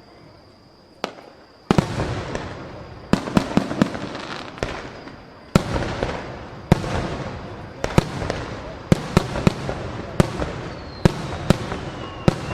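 Aerial fireworks shells bursting: a single sharp bang about a second in, then from about two seconds a rapid run of bursts, each bang trailing off in a rumbling echo. A faint high whistle falls in pitch near the end.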